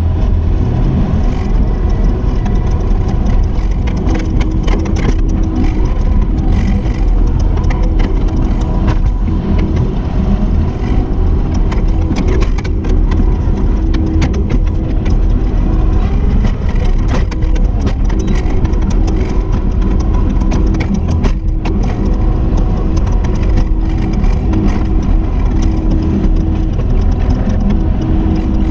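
Kubota SVL75-2 compact track loader working, its four-cylinder diesel engine running steadily at high speed, with many small knocks and rattles from the machine.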